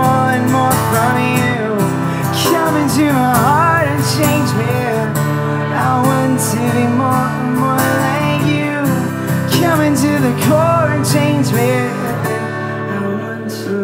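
Live music: a man singing while strumming a steel-string acoustic guitar.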